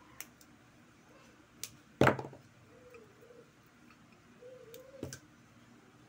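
Pliers clicking and snipping at the aluminium-wound stator of an electric fan motor: a few sharp clicks, the loudest about two seconds in and another near five seconds.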